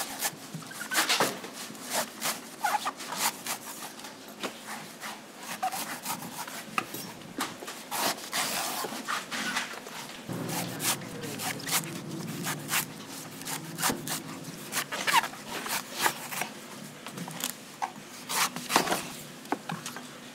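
A large knife trimming the husk off a young coconut on a wooden chopping block: irregular chops and scraping cuts through the fibrous husk, with short knocks of the blade on the wood and one longer scrape about eight seconds in.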